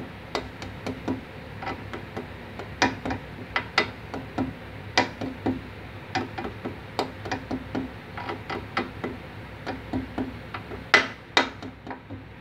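A spanner clicking on the nut of a rear stabilizer link as it is tightened, with new rubber bushings being fitted. The sharp metallic clicks come a few a second, unevenly, with two louder ones near the end.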